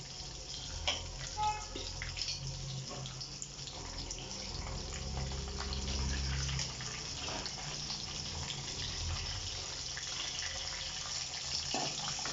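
Hot oil sizzling steadily in a kadai as dals, peanuts and cashews fry for a tempering, with a steel spoon stirring and scraping now and then. A low hum runs underneath.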